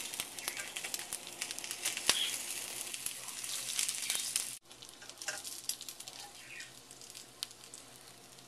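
Egg and bell pepper ring frying in olive oil in a pan, sizzling steadily with many small crackles. The sizzle drops off sharply about halfway through and carries on more quietly.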